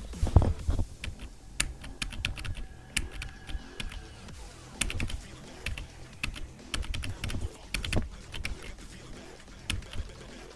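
Computer keyboard keys clicking in irregular typing, with uneven gaps between key presses and a few clicks clustered close together.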